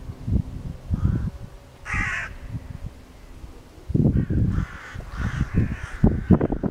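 Crows cawing overhead: one call about two seconds in, then a run of calls in the second half. Gusts of wind rumble on the microphone underneath.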